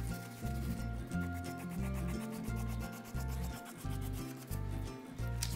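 A fingertip rubbing chalk off a torn paper edge onto the drawing paper beneath, in repeated short brushing strokes.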